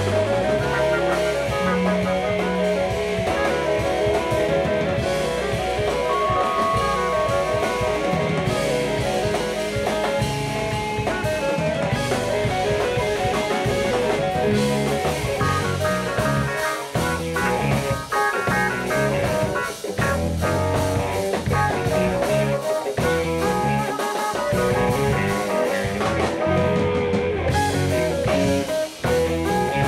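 Live jazz-funk band playing continuously, with drum kit and electric guitar.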